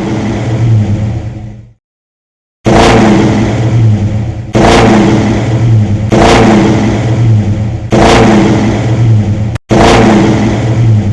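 Loud car engine running and revving, heard as several short spliced clips that each start abruptly, with a dead gap of silence about two seconds in.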